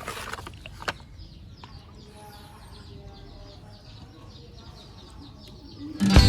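Birds chirping faintly, with a few light clicks; loud music starts near the end.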